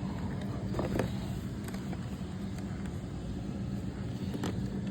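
Steady low hum with a few light clicks, about a second in and near the end, of small plastic parts being handled as battery wires are pushed into a damaged connector.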